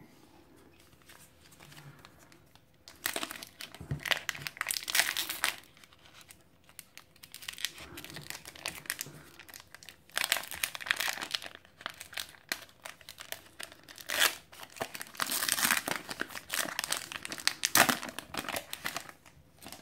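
Foil wrapper of a Pokémon trading card booster pack crinkling in several bursts as it is handled and torn open.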